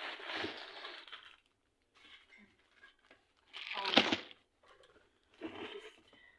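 Kitchen handling noise: a crinkling, rustling sound for the first second and a half, then a sharp knock about four seconds in and another short rustle near the end.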